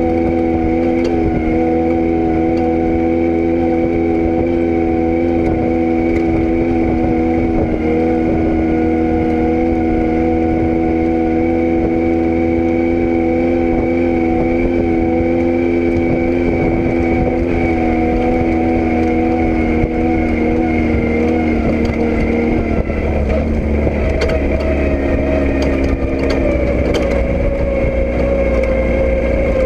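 A vehicle engine running steadily at constant speed, with a low rumble underneath. About three-quarters of the way through its note shifts to a different pitch.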